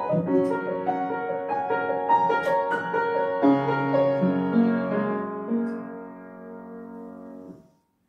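Upright piano being played: a quick succession of notes, then slower notes settling into a held closing chord that rings more quietly and is cut off sharply near the end as the keys are released, ending the piece.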